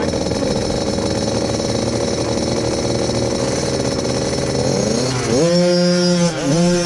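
Small 50cc two-stroke motocross bikes running at race speed; about five seconds in one revs up, its pitch rising, and gets much louder, then backs off the throttle briefly near the end.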